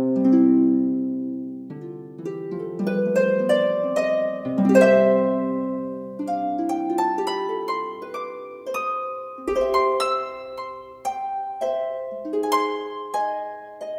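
Background music: a melody of plucked harp notes in flowing runs, each note ringing and fading.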